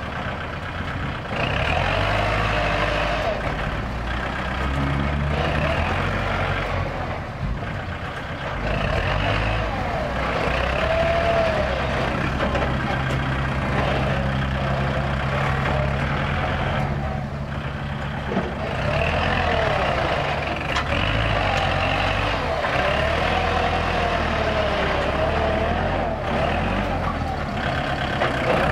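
Kubota L4708 tractor's four-cylinder diesel engine running under load as its front blade pushes soil and grass. The engine note shifts up and down several times, with a whine above it that wavers in pitch.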